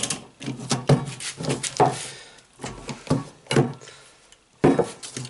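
Ratchet wrench with a 17 mm socket loosening a threaded fitting on an Iwata LPH 400 spray gun body, so the leaking air valve can be reached. It gives irregular sharp clicks and metal knocks, about one a second, with handling rubs between them.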